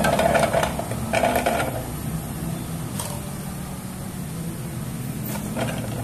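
Chunks of ginger dropped into the clear bowl of a food chopper: two short rattling clatters in the first two seconds, then garlic cloves tumbling in near the end. A steady low hum runs underneath.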